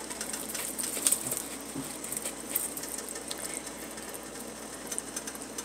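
Pot of chicken soup broth simmering on the stove, a steady hiss with an irregular patter of small bubbling pops.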